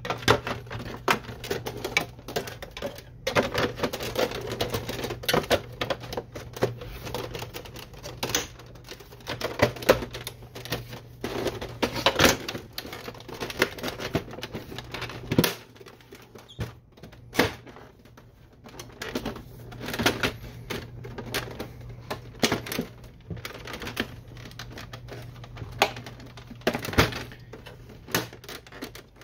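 Plastic housing covers of a Canon Pixma MG6820 printer being handled, fitted and snapped into place by hand: irregular clicks, knocks and rattles over a steady low hum.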